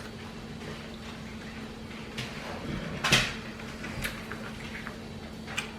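Quiet handling sounds from food and kitchen items, with small clicks and one short scrape or crunch about three seconds in, over a faint steady hum.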